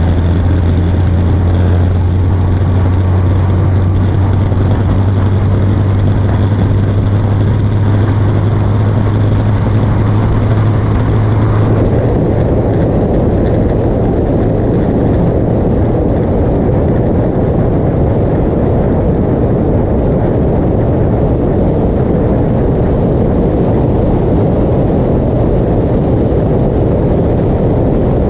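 Motorcycle engine running steadily at highway speed, with wind rushing over the microphone. About twelve seconds in, the steady low engine note fades and a rougher rushing noise takes over.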